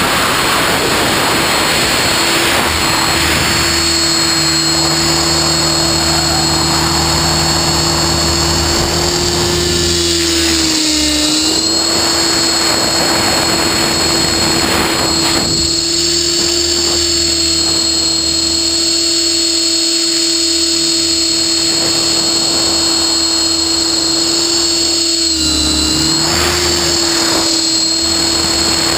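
Align T-Rex 600E Pro electric RC helicopter in flight, heard from a camera mounted on the helicopter: a steady whine from the brushless motor and drive gears over the whoosh of the spinning rotor blades. The pitch dips briefly twice, about a third of the way in and again near the end, during manoeuvres.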